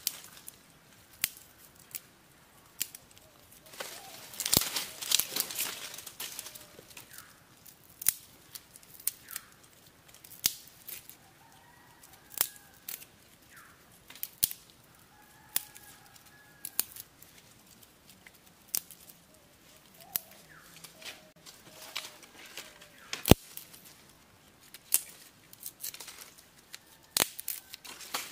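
Dry sticks being snapped and broken by hand, a sharp crack every second or so, with a longer crackling and tearing stretch about four seconds in. Faint bird calls sound behind.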